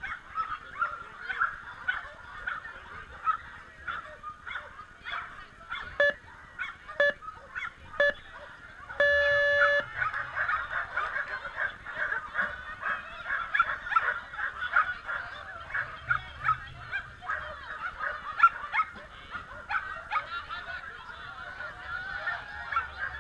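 Flyball dogs barking excitedly over and over. About six seconds in the electronic start system gives three short beeps a second apart and then a longer beep that starts the race, and the barking grows denser after it.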